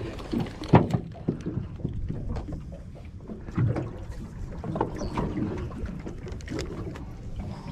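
Steady low wind and water noise around a small open aluminium boat, with scattered light clicks and knocks from a spinning rod and reel being handled.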